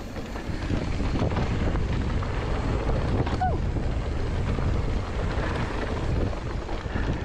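Wind buffeting the microphone together with a mountain bike's tyre and frame noise on a dirt trail during a fast descent. It makes a steady, heavy rumble, with one short falling tone about three and a half seconds in.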